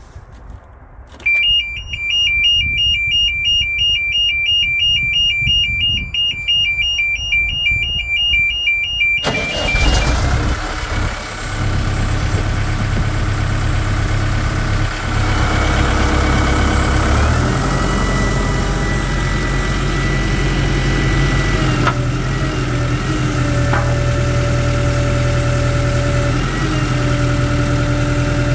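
The start-up safety siren of a Terex Finlay 883 screener sounds as a fast-pulsing high electronic beep for about eight seconds while the key is held. The Deutz diesel engine then cranks and starts about nine seconds in and runs steadily, with the machine's mechanical noise and a couple of steady tones joining later.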